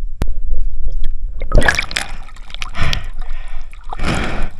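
Water splashing and gurgling around a camera at the water's surface, in rushes about every second and a half, after a low muffled underwater rumble and a single click near the start.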